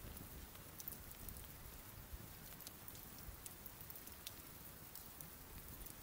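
Wood bonfire burned down to glowing embers, smoldering with faint, scattered small crackles and pops over a soft hiss.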